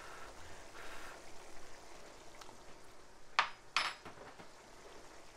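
Thick meat sauce simmering hard in a wide pan with a soft bubbling, and two sharp clinks of a utensil against the cookware about half a second apart, a little past halfway, the loudest sounds.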